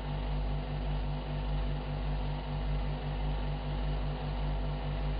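Steady low electrical hum and hiss with a throb that pulses about six times a second, the background noise of an old film soundtrack.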